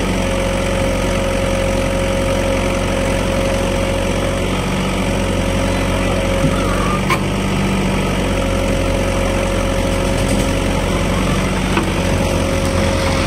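Heavy diesel engines of a JCB 3DX backhoe loader and a Tata tipper truck running steadily under load as the backhoe tows the stuck truck on a rope. A thin steady whine cuts in and out several times.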